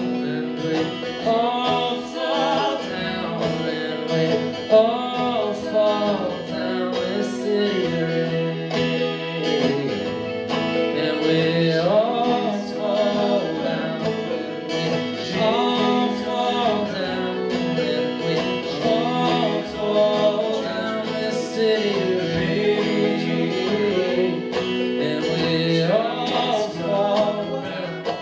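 Folk string band playing an instrumental passage live: fiddle, acoustic guitar and banjo, with a gliding lead melody over steady strummed chords.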